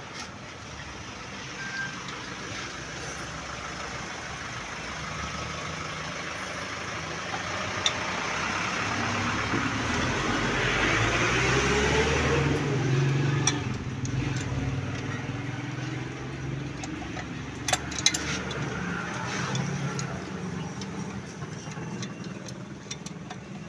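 A motor vehicle's engine passing by, growing louder to a peak about halfway through and then fading, with a few sharp metal clicks and knocks as a motorcycle's sprocket cover is fitted.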